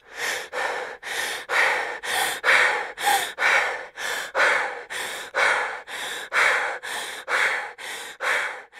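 Rapid, heavy panting breaths, about two a second, evenly paced throughout.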